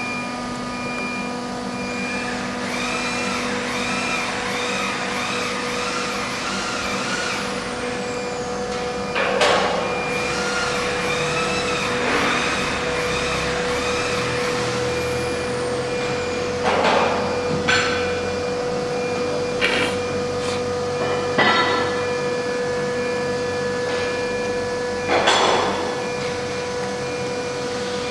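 1325 disc-type ATC CNC router running: a steady spindle whine, with the axis drive motors whining up and down again and again as the gantry makes a series of quick moves. A few short hissing bursts come through at intervals.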